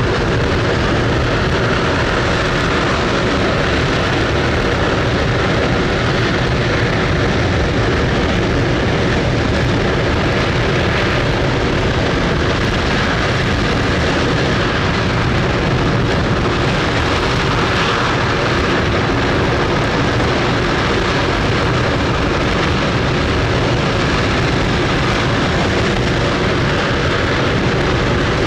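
Space Shuttle Main Engine (RS-25), a liquid-hydrogen/liquid-oxygen rocket engine, firing on its test stand: a loud, steady, unbroken rumble of rocket exhaust with no let-up in level.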